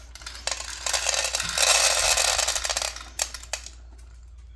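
Dry cat kibble poured into a bowl: a rattling patter of many small pellets lasting about two and a half seconds, heaviest just before it stops, followed by two light clicks.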